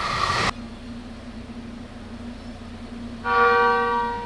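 A train horn and the rush of a passing express cut off sharply about half a second in. A low steady hum follows. Near the end, another train horn sounds once for about a second, loud and full with several tones.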